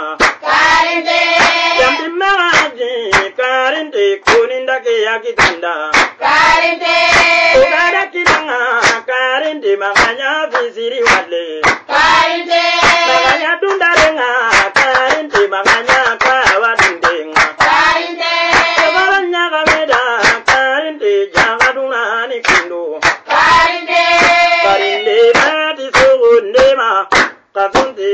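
A woman singing long, wavering notes to steady hand clapping.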